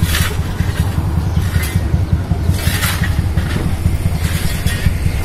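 Outdoor street traffic of motorcycles and cars under a steady, fluttering low rumble of wind on the microphone, with a few brief rushes of noise.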